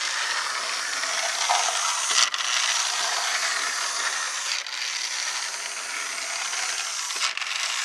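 Lionel toy trolley running along its track, a steady whirring electric motor and wheel noise. There are brief dips about every two and a half seconds.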